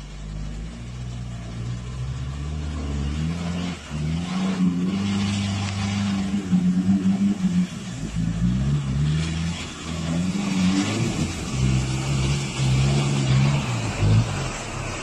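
Pickup truck engine revving up and down repeatedly as it drives through a flooded muddy gully, with water splashing around the wheels.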